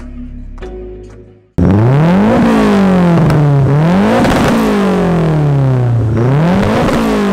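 Turbocharged KA24 2.4-litre four-cylinder engine of a Datsun 510 cutting in suddenly about a second and a half in and being revved hard, about three times, climbing and dropping in pitch with each rev. Before that, background music fades out.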